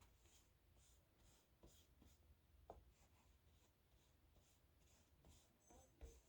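Faint, soft strokes of a paintbrush loaded with acrylic paint brushing over a leaf, about two strokes a second.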